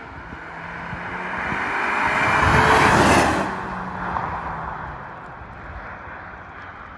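Cupra Formentor driving past at speed in Cupra drive mode. The engine and exhaust note grows louder to a peak about three seconds in, then fades quickly as the car pulls away.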